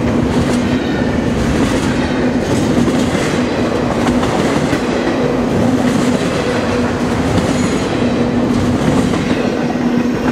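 Double-stack intermodal freight train rolling past, its wheels clattering over the rail with a steady low hum running under the clatter; the last cars go by near the end.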